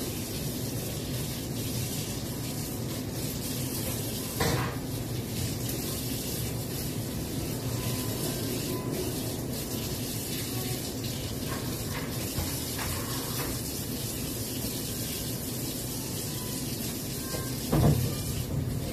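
Kitchen tap running into a sink while dishes are washed by hand. Dishes knock about four seconds in and again near the end.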